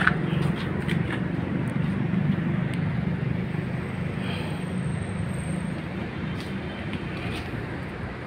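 Steady low rumble of vehicle noise, with a few faint ticks over it.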